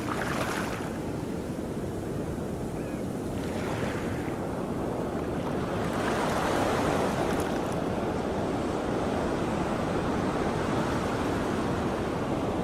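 Wind and waves washing steadily, with gusts buffeting the microphone; it swells a few times and is a little louder from about six seconds in.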